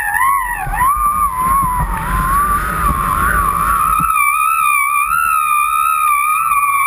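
Background music carried by a sustained, gently wavering high tone. A low rumbling noise joins it from about half a second in until about four seconds in.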